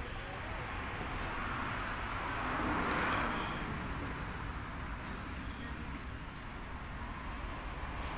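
Outdoor road traffic noise: a vehicle passing by, swelling to its loudest about three seconds in and then fading.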